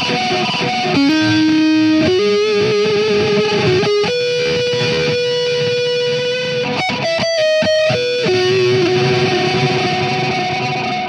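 Electric guitar through a Soldano SLO 30 Mini amp head with a Boss Metal Zone distortion pedal and a delay pedal in front, playing distorted single-note lead lines with long held notes, the last one ringing out. The delay sits first in the chain here, which the player feels feeds it too much signal and adds unwanted distortion.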